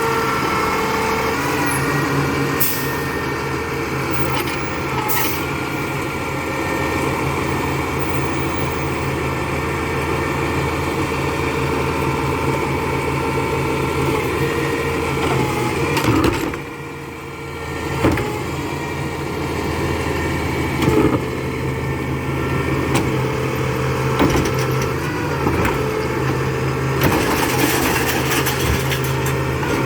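Labrie Expert 2000 recycling truck's diesel engine running steadily, with several steady whining tones over its drone. There are a couple of sharp clicks in the first few seconds and a brief drop in level a little past halfway.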